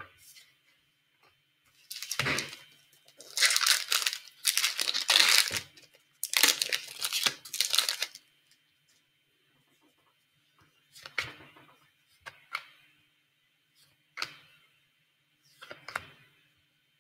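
A 2015-16 Upper Deck Series 2 hockey card pack's wrapper being torn open, in four ripping stretches over about six seconds. After that come a few short, quieter rustles as the cards are handled.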